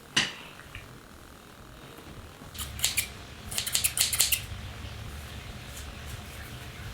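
Scissors snipping hair: a quick run of short, sharp cuts a little after two and a half seconds in and another run about a second later, over a faint low hum.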